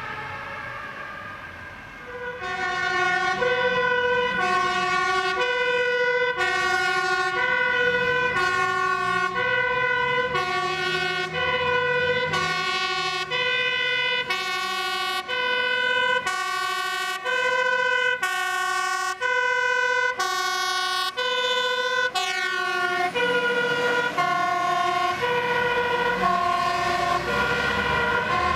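Dutch fire engine's two-tone siren alternating steadily between a high and a low note, switching roughly every half second, as the truck drives past. It comes in loud about two seconds in.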